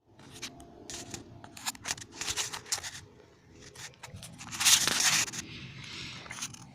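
Rustling and scraping handling noise with a run of sharp clicks, and a louder hissing rub lasting under a second about five seconds in.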